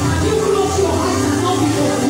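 Gospel music played loud through a church PA system, with a woman's voice on a handheld microphone over it.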